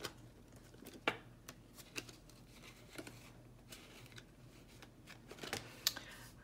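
Paper banknotes rustling as they are slid into a plastic binder envelope and the binder's envelope pages are turned, with a few scattered soft clicks and taps; faint.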